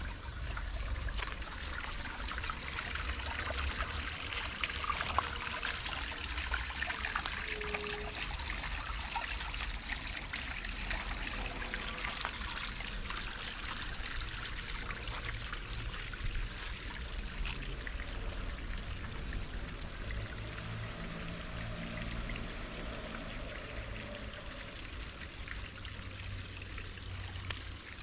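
Steady trickling water, with a low rumble underneath. A faint low drone comes in about two-thirds of the way through and fades before the end.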